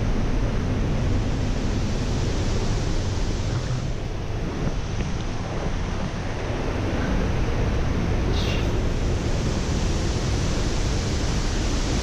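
Steady roar of the Pailón del Diablo waterfall, heavy in the deep rumble.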